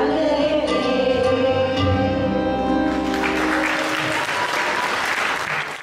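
Live performance of a Sinhala stage-drama song ending: a woman's voice holds a final note over keyboard and hand-drum accompaniment, and about three seconds in the audience breaks into applause.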